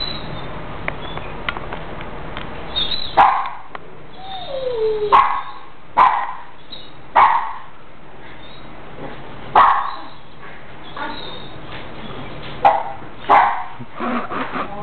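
A dog barking in single sharp barks, about seven of them at uneven gaps, starting about three seconds in.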